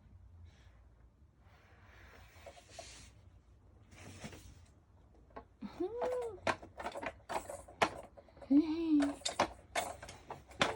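A baby vocalizing in short arching squeals and babbles from about six seconds in, amid sharp clicks and knocks of things being handled. Faint rustling comes earlier.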